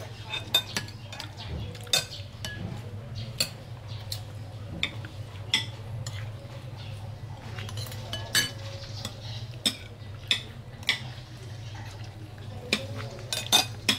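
Metal spoons clinking against porcelain plates and a serving bowl as people eat, irregular sharp clinks every second or so, over a steady low hum.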